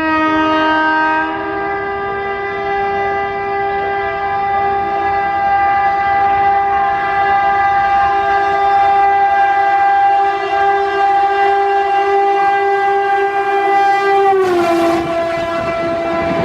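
WAP-4 electric locomotive's horn sounding one long, continuous blast as the train speeds in, changing tone about a second in. About fourteen seconds in, the horn's pitch drops as the locomotive passes, and the rush of the passing train sets in.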